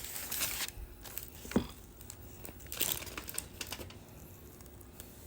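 Paper wrapper crinkling around a sub sandwich as it is handled, in irregular bursts with small crackles between.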